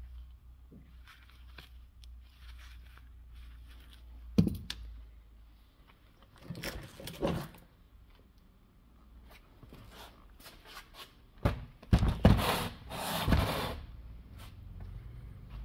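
Plastic interior door trim panel being worked loose and pulled off a car door. A sharp knock, then bursts of scraping and tearing noises, the loudest cluster near the end.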